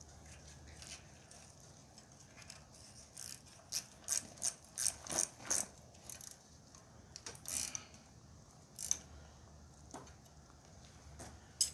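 Ratchet spanner clicking in a series of short strokes, with a quick run of clicks in the middle and a few single ones later, as a 12 mm bolt is done up.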